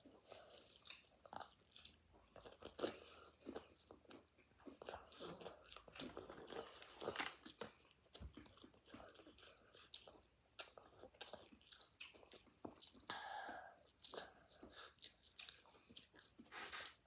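A person chewing and biting into fried chicken, with faint, irregular crunches and mouth sounds.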